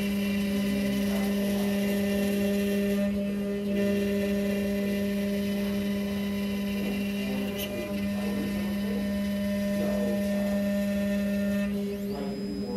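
Benchtop CNC mill's spindle running with a steady pitched whine as its small end mill cuts a key shape into a wooden board. A high thin steady tone joins about a second before the end.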